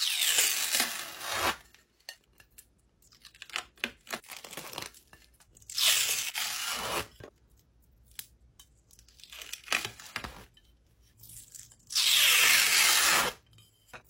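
A thin film of slime being peeled off the faces of plates: crackly tearing in several long strokes, with small crackles between, the loudest stroke near the end.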